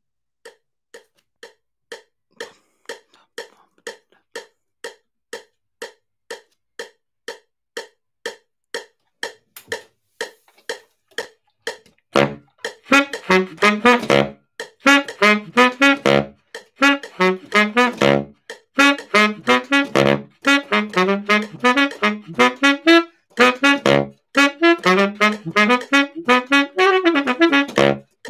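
A metronome ticks a little over twice a second, getting louder, and then a baritone saxophone comes in about twelve seconds in. It plays loud, punchy, staccato riffs in short phrases with brief breaths between them.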